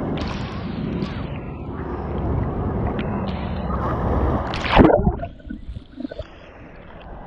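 Rough sea water sloshing and gurgling against a waterproof camera held at the surface. A wave slaps against it loudly just under five seconds in, after which the sloshing is quieter.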